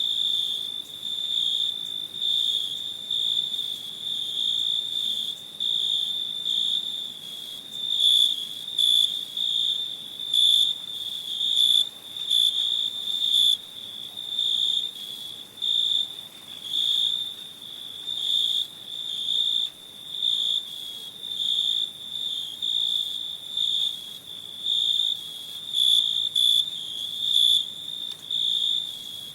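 A cricket chirping steadily in a high trill that pulses in short phrases about once or twice a second.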